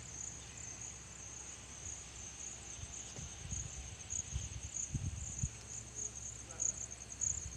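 Insects chirping in a steady, high, pulsing trill, with a few low thumps around the middle and near the end.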